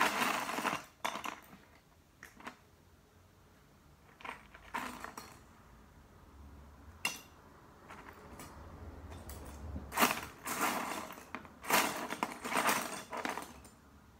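Loose plastic Lego bricks clattering in a plastic storage box as a hand rummages through them, in several bursts with quieter gaps, the loudest near the end.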